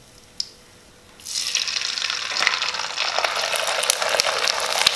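A dried sago (sabudana) papad frying in hot oil: after a quiet second with a light click, a dense crackling sizzle starts as it goes into the oil and keeps going steadily.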